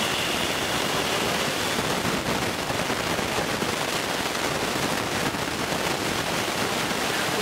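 HO-scale model freight train of boxcars rolling past close by: a steady, dense rattle of small metal wheels on the track.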